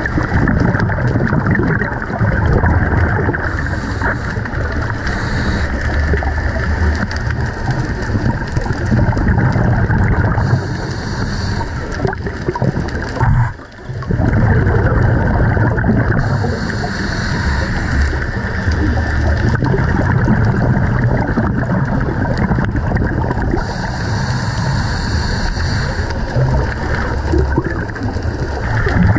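Underwater sound through an action camera's housing: a steady, muffled rumble of moving water, broken four times by a hiss of scuba regulator exhaust bubbles, about every six to eight seconds, in time with a diver's breathing.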